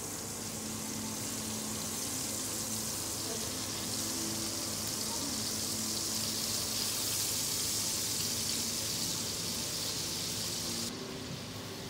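Fish fillets sizzling in hot butter and olive oil in a frying pan as they are laid in one after another. The steady sizzle grows louder as more fillets go in and drops off abruptly near the end.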